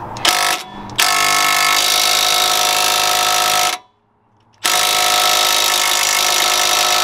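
Impact wrench working the lower shock mounting bolt: a short blip, then two steady runs of about three seconds each with a brief stop between. The bolt is not coming free easily.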